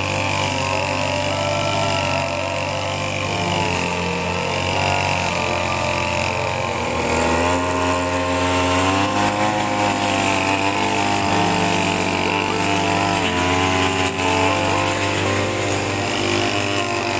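Backpack brush cutter engine running continuously while cutting grass, with background music over it.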